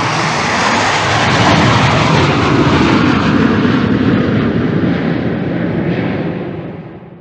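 Canadair CT-114 Tutor jet trainer's J85 turbojet roaring as it passes, swelling to a peak a few seconds in and then fading away.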